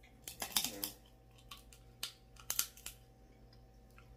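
Close-up eating sounds: irregular sharp clicks and smacks, several in quick succession about half a second in and more spread out after, from eating and picking at snow crab legs.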